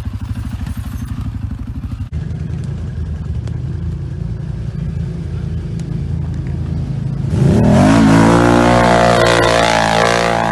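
Quad bike (ATV) engines running: a steady pulsing engine, then after a cut a steady engine, and about seven seconds in a loud rev rising in pitch as a quad accelerates hard up a steep dirt slope, held at high revs.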